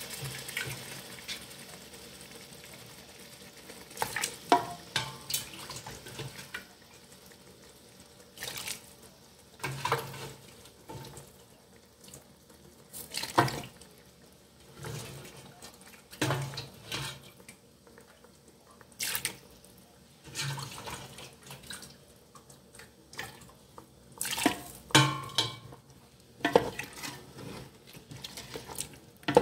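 Boiled goat meat being tipped into thick curry paste in a pot and stirred: irregular wet knocks and scrapes of a spatula against the pot.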